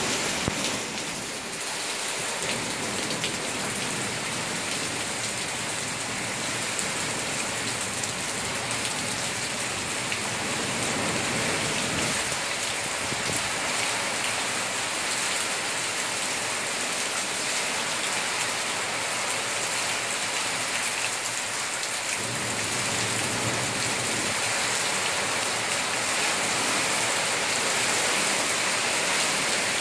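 Heavy, steady hurricane downpour hissing on the ground and foliage. Gusts of wind swell up a few times and the rain gets a little louder near the end.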